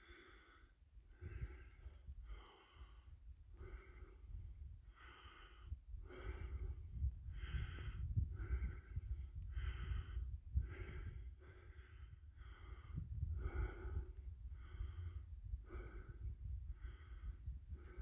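Steady, rhythmic breathing close to the microphone, an airy puff about every three-quarters of a second, over a low rumble of wind on the microphone.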